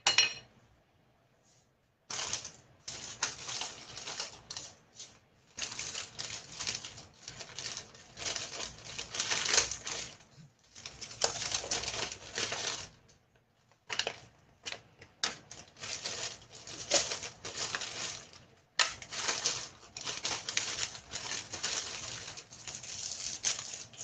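Plastic wrapping crinkling and crackling as it is pulled apart by hand, in irregular bursts with a few short pauses.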